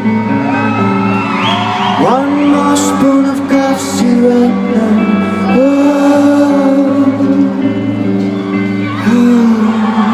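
Live rock band playing with held, wordless sung notes that slide in pitch, over steady guitars and drums, in the echo of a large hall.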